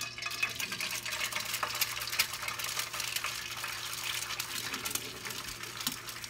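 Food sizzling in a frying pan: a steady hiss with scattered crackles and pops, starting suddenly.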